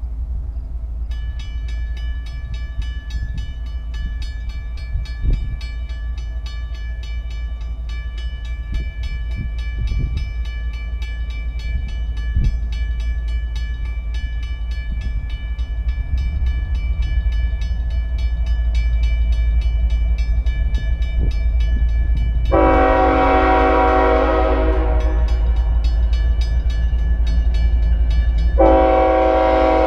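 Canadian National freight locomotive approaching, its air horn sounding two long chords, the first about two-thirds through and the second near the end, over a steady low rumble. A pulsing, ringing bell, typical of a grade-crossing bell, starts about a second in.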